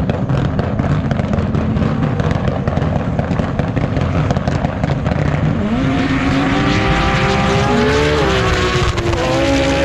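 Drag race car engines at full throttle down the strip. A rough, loud engine noise gives way about halfway through to a climbing engine note that drops back twice near the end as the car shifts up through the gears.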